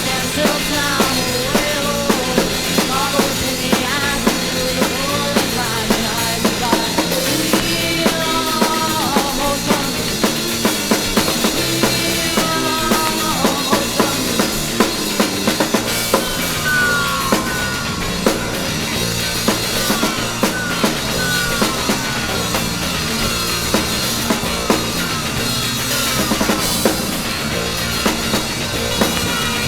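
Garage punk rock band playing from a 7-inch vinyl record: a steady drum-kit beat under bass and guitar, with repeated short falling sliding notes through the second half.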